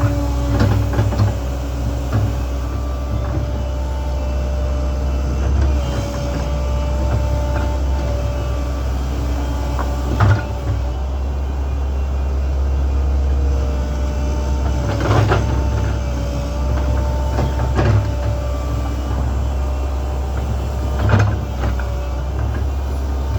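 Link-Belt 2700 excavator's diesel engine running steadily under load, with a constant hydraulic whine and several sharp clunks spread through, a few seconds apart, from the bucket and boom at work.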